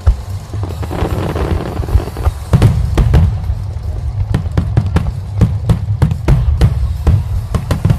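Fireworks bursting in quick succession: sharp bangs, several a second, from about two and a half seconds in, with a crackle shortly before. Music with a heavy bass plays underneath.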